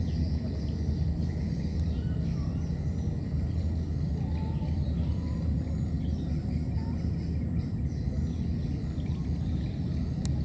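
A steady low rumble of outdoor background noise, with a few faint high chirps now and then.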